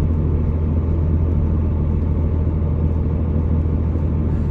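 12-valve Cummins inline-six diesel running steadily at low speed, a constant low rumble.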